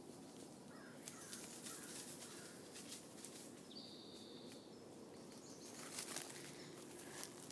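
Quiet outdoor ambience in open woodland, with a single high, steady whistled note lasting about a second midway and a few faint chirps. Soft rustles of movement come near the end.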